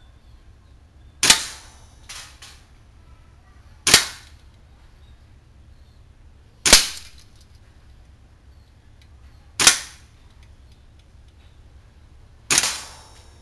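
WE SMG8 gas blowback airsoft gun firing five single shots, one about every three seconds, each a sharp crack with a short decay.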